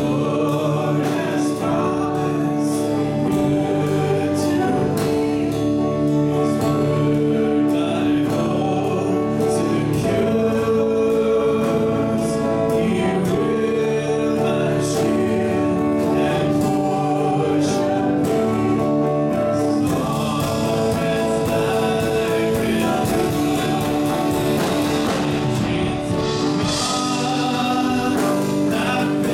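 Live Christian worship band playing a song: a man and a woman singing over electric and acoustic guitars and drums.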